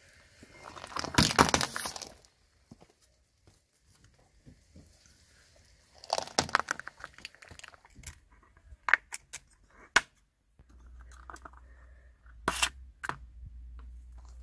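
Car tyre crunching over gravel and rubbery spiky puffer-ball toys, twice, then scissors snipping at the toys' rubber spikes in several sharp separate clicks.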